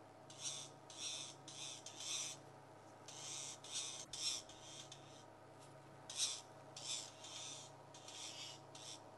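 Birds giving harsh, rasping alarm calls: bouts of short scratchy notes repeated irregularly as they mob something hidden near the base of a tree, over a steady low hum.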